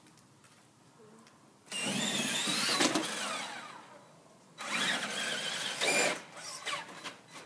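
Traxxas Summit RC truck's electric motor and gears whining under throttle in two bursts, one about two seconds in and another just before the five-second mark, the pitch rising and falling as the truck speeds up and slows.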